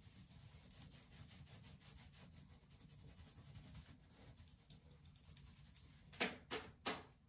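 Faint rubbing and rustling of hands working styling product through short curly hair, with three short, louder swishes close together about six to seven seconds in.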